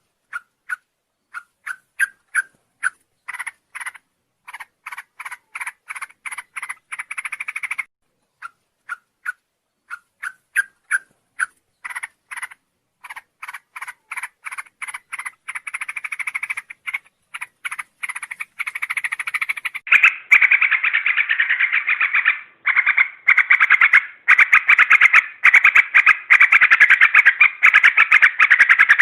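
Yellow-vented bulbul (trucuk) calling: rapid runs of short chattering notes, in broken bursts at first. About twenty seconds in they turn into a louder, dense, nearly continuous chatter.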